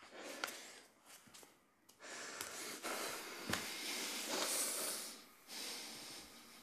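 A man's heavy, strained breathing: long noisy breaths forced out and drawn in, the longest lasting from about two seconds in to past five seconds, with a few small clicks among them.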